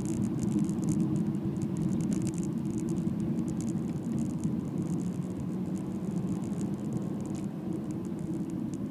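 A car driving at steady speed, heard from inside the cabin: a continuous low engine and road rumble with a flickering high hiss over it.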